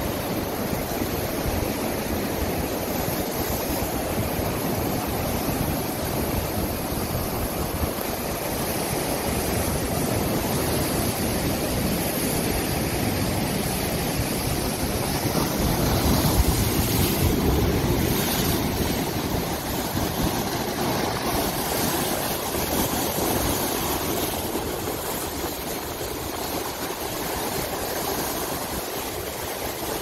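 Rough sea surf breaking and washing over a rocky shore, a continuous rushing wash that swells to its loudest about halfway through and then eases.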